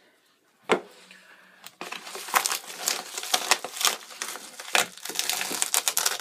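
Plastic bubble mailer crinkling and crackling as it is pressed and handled by hand, with a single sharp click under a second in.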